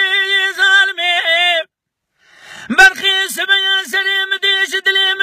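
A man singing an unaccompanied Kurdish dengbêj song. He holds a long high note, ornaments it, breaks off about a second and a half in to take an audible breath, then goes on with quick, ornamented phrases that dip and turn in pitch.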